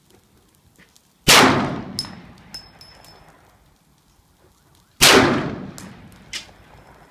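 Two shots from a .50 caliber Thunder Sabre AR pistol with an 8.5-inch barrel, about four seconds apart, each a sharp blast followed by about a second of echo dying away.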